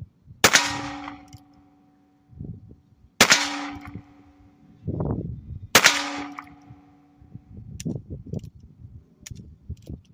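Heritage Rough Rider .22 Long Rifle single-action revolver firing three shots about two and a half seconds apart, each followed by a metallic ringing that fades over about a second. Softer low knocking and handling sounds fill the gaps between shots.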